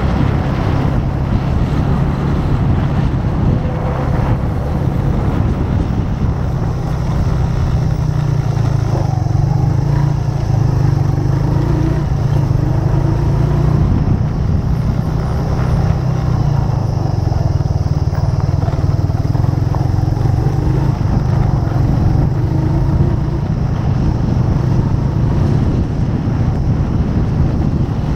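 Motorcycle engine running steadily under way, a low continuous drone whose pitch rises and falls slightly.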